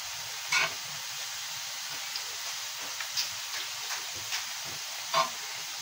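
Butter sizzling in a hot frying pan: a steady hiss with a few sharp crackles and pops, the loudest about half a second in and near the end.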